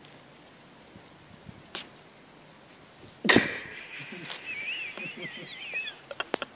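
Two puppies at rough play: a sudden loud yelp-like cry about three seconds in, then a high, wavering squeal lasting about a second and a half, with a few sharp clicks near the end.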